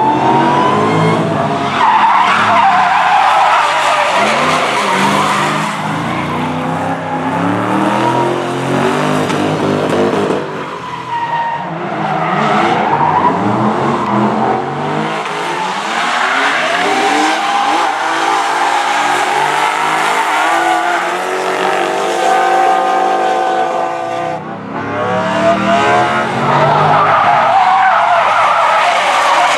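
Several drift cars sliding at full throttle, engines revving up and down with tyres squealing through long slides; among them is the supercharged V8 of a Ford Mustang GT with a Borla exhaust. The engine noise drops off briefly twice, about eleven seconds in and again about twenty-four seconds in.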